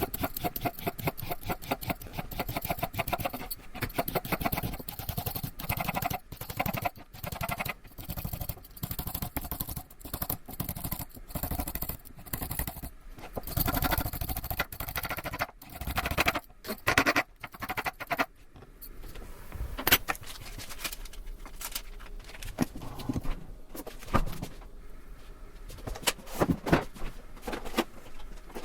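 Kitchen food-prep sounds: dense, quick taps, knocks and scrapes of utensils on hard surfaces, thinning out to sparser knocks about two-thirds of the way through.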